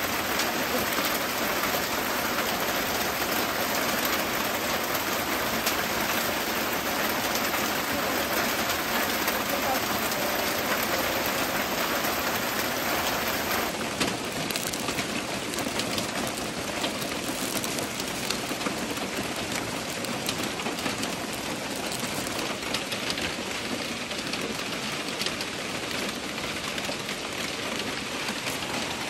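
Steady rain falling, a dense even patter, a little quieter after a cut about fourteen seconds in.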